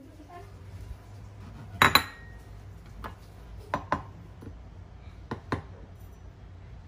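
Kitchenware clinking and knocking: a handful of sharp clinks of dishes, pots and utensils, the loudest a double knock about two seconds in, over a faint steady low hum.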